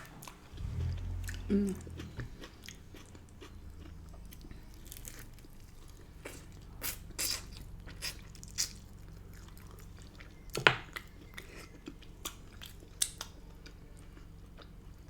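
Close-up eating sounds: chewing, biting and wet mouth clicks as rotisserie chicken is eaten, with one sharper click about ten seconds in. A low rumble sounds in the first couple of seconds.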